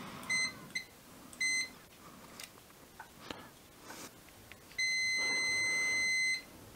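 Mastercraft digital multimeter's continuity beeper sounding as its leads are connected across the terminals of an old key ignition switch. Three short beeps come in the first two seconds, then one long steady beep of about a second and a half near the end. The beeping shows continuity through the switch that the owner doubts should be there.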